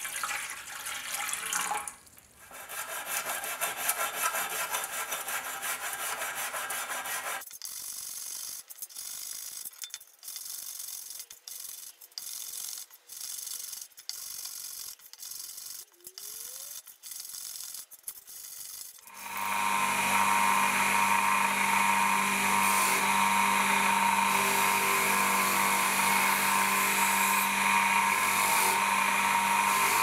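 Tap water runs and splashes into a container holding the knife parts. After about seven seconds come irregular rubbing strokes as the parts are scrubbed in a metal tray. From about nineteen seconds a bench motor spinning a wire wheel runs steadily.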